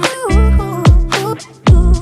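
Background music: an R&B-style track with a strong bass-drum beat and a sliding melodic line.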